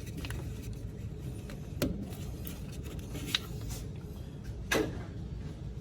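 Light clicks and knocks of hands handling small parts and tools, three sharper ones about two, three and a half and five seconds in, over a steady low hum.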